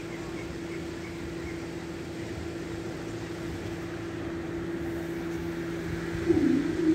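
Level crossing audible warning alarm sounding a steady, unbroken tone while the barriers are down. It gets clearly louder near the end.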